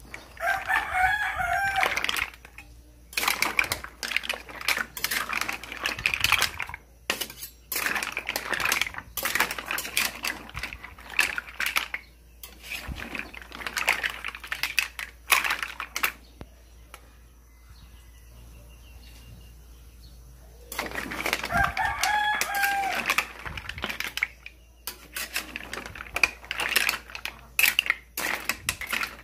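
Repeated clattering and knocking, like hard shells or utensils against a pot, with a pitched animal call twice, about a second in and again about 21 seconds in.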